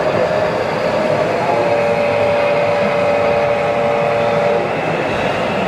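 Busy exhibition-hall din, a steady wash of noise. From about a second and a half in, a steady chord of several held tones sounds for about three seconds, then stops.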